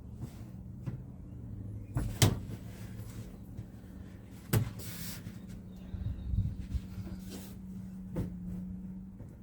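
Scattered knocks and clicks from handling panels and parts by hand, the sharpest about two seconds in and again about four and a half seconds in, over a steady low hum.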